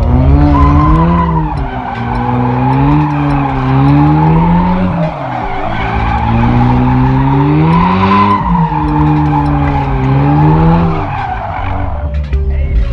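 A car drifting: its engine revs up and falls back about four times over a steady tyre squeal and hiss. The sound cuts off near the end.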